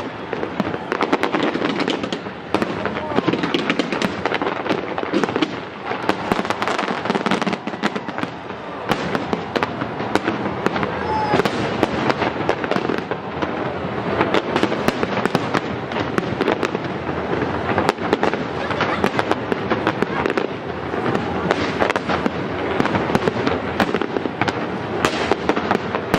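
Aerial fireworks going off in a dense, continuous barrage of bangs and crackles, with people's voices mixed underneath.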